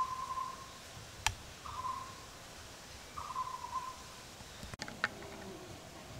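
A bird calling: one short hoot-like note repeated about every one and a half seconds, each sliding briefly down at its start. A sharp click comes about a second in, and another near five seconds.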